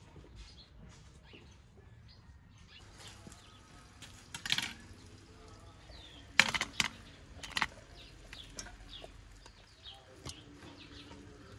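A few sharp metallic knocks and clatters from a stainless steel colander being set down and handled on stone paving, the loudest about six and a half seconds in, over birds chirping in the background.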